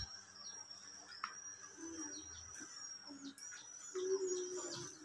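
Faint bird chirps: short notes sliding downward, repeated every half second or so over a steady high-pitched ringing.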